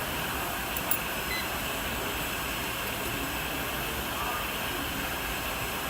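Steady mechanical hum and hiss of running machinery, with a faint click about a second in and a brief faint beep.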